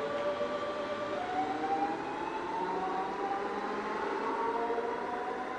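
DB class 425 electric multiple unit pulling away, its traction motors giving a whine that rises in pitch as it accelerates, stepping up about a second in.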